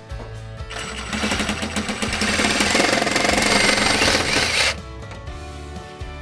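A cordless power saw, most likely a reciprocating saw, cuts through a PVC drain pipe. It runs with a fast chattering rasp for about four seconds, starting about a second in, then stops. Background music plays throughout.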